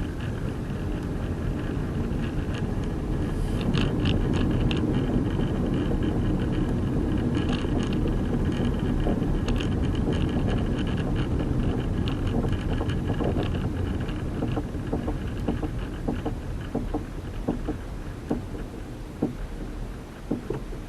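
A car driven at low speed, with road and running noise and a repeated knock from under the hood that keeps time with the wheel's rotation. The knocks stand out more clearly in the second half as the running noise drops. The knock appeared after rain and is heard only up to about 40 km/h.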